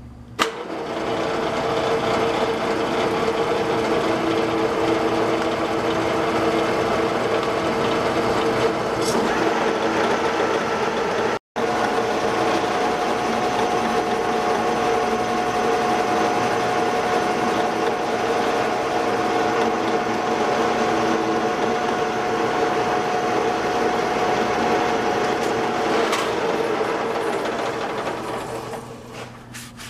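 Metal lathe switched on with a click, spinning up and running with a steady whine while taking a facing cut across the end of a steel part. It winds down near the end.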